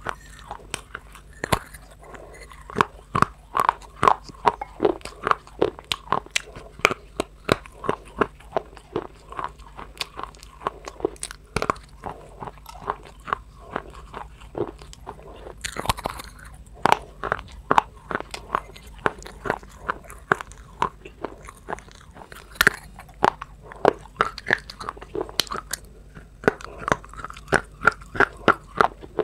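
Close-up crunching as something hard and crumbly is bitten and chewed, with rapid sharp cracks several times a second.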